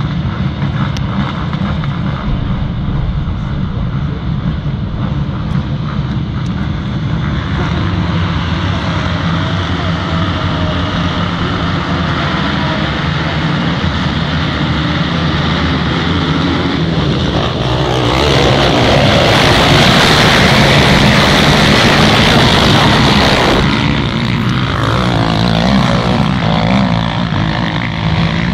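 A pack of racing quad (ATV) engines running and revving together at the start line. About 18 seconds in, the sound swells sharply into a loud, dense full-throttle noise for several seconds as the pack launches, then falls back to engines revving up and down.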